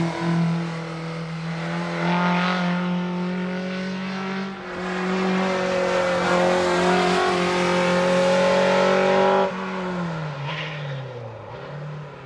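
Škoda 130 RS race car's engine running hard under throttle, its pitch climbing for several seconds, then dropping off suddenly about nine and a half seconds in and falling away as the driver lifts and slows, before picking up again near the end.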